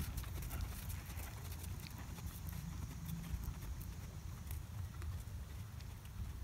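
Hoofbeats of a ridden horse moving over a sand arena footing, under a low steady rumble.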